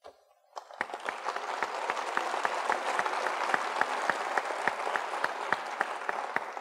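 Audience applauding, swelling up about half a second in, holding steady, and dying away near the end.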